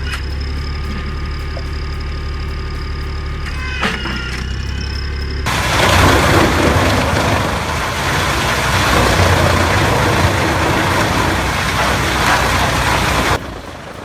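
An engine-driven wood-processing machine running steadily with a high whine. About five seconds in, a loud, rough grinding noise sets in, lasts about eight seconds and cuts off abruptly near the end.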